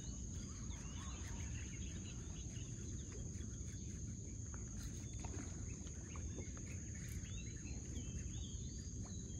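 Outdoor waterside ambience: a steady high-pitched insect drone with many short bird chirps and whistles over it, and a low rumble underneath.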